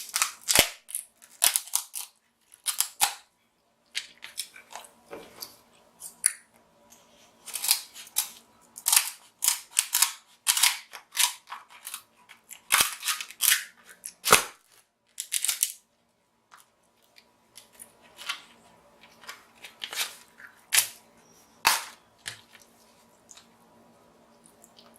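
King crab leg shells being cracked and cut open with scissors, close to the microphone. Irregular clusters of sharp cracks and snips, busiest through the first two-thirds and sparser near the end.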